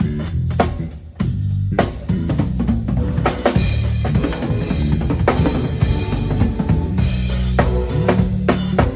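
A drum kit played in a sound check, with kick drum, snare and rimshot strikes over steady low notes. About three seconds in, the sound fills out into fuller music under the drums.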